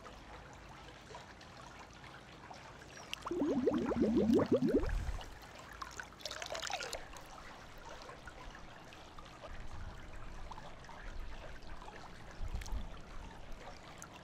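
Plastic water-sample bottle glugging as it is held under pool water and fills, air escaping in a quick run of rising gurgles for about a second and a half. A shorter splash of water follows a couple of seconds later.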